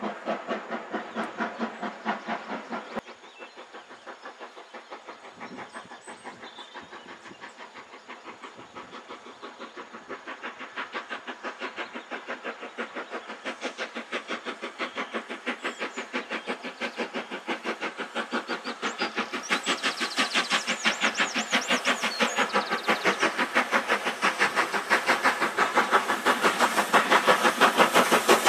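LMS Black 5 two-cylinder steam locomotive hauling a goods train, its exhaust beats chuffing in an even rhythm. After a sharp drop about three seconds in, the beats grow steadily louder as the engine approaches.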